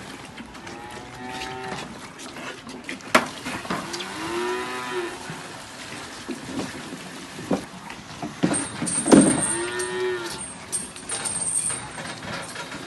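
Holstein calves mooing: three drawn-out calls, with a few sharp knocks in between.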